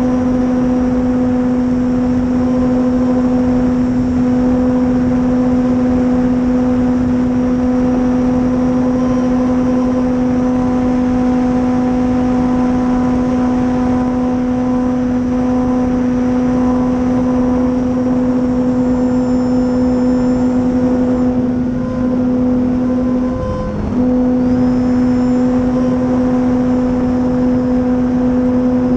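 Electric brushless motor (Dualsky 480) and propeller of an RC warbird running at a steady speed, a loud constant hum with overtones over a rushing noise. About three-quarters of the way through, the motor speed dips briefly, lower and quieter, then picks back up.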